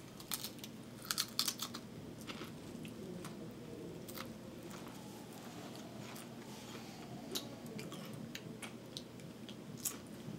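Pringles crisps being bitten and chewed: a cluster of crunches in the first two seconds, then scattered smaller crunches and clicks.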